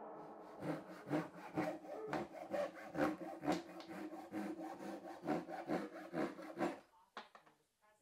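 Japanese pull saw (ryoba) cutting a wooden board by hand, in even strokes about two a second, stopping about a second before the end.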